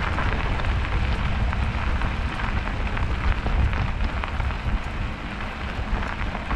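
Bicycle tyres rolling over a snowy road: a steady rushing hiss with faint scattered crackles, over a low, uneven rumble of wind on the microphone.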